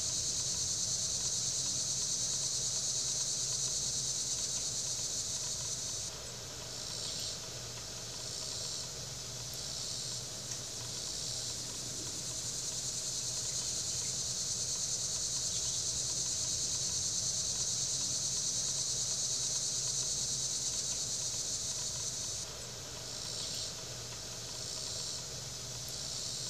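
Steady high, shrill chorus of crickets and other insects that breaks into a pulsing rhythm for a few seconds twice, over a faint low hum.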